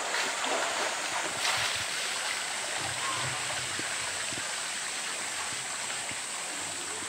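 Steady rush of flowing water in a polar bear pool, with a brief louder splash about a second and a half in.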